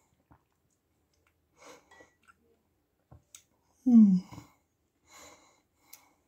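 Eating soup with a metal spoon: soft slurps and breaths with a few light clicks of the spoon against the bowl. About four seconds in comes one short, loud vocal "mm" that falls in pitch.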